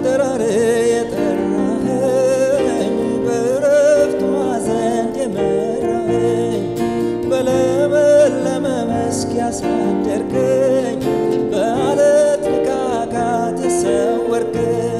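Instrumental introduction to an Amharic gospel worship song: acoustic guitar strumming with two electronic keyboards holding chords, and a melody with vibrato wavering over them.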